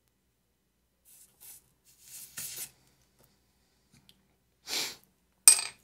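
A few short rustling and scraping noises of hands working with solder wire and a small pump motor on a soldering bench, ending in a sharper knock or scrape about five and a half seconds in.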